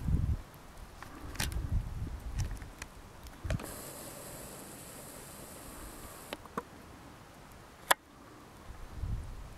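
Handling and wind rumble on a handheld camcorder's microphone, a few sharp clicks, and a steady high hiss for about three seconds in the middle, which fits the camcorder's zoom motor as the shot zooms in.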